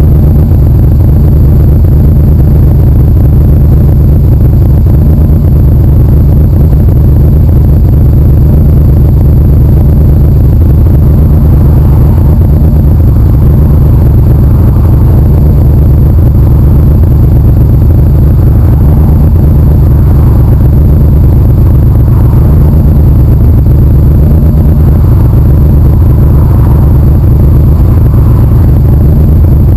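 Motorcycle engine idling steadily, picked up very loud by a camera mounted on the bike itself.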